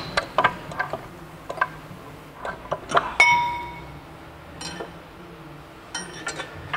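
Metal-on-metal hammer strikes on a punch against the splined end of a stuck Saab 9-5 CV axle, driving it out through the wheel hub. Light metallic taps come first, then a harder blow about three seconds in that rings like a bell, and a few more taps near the end.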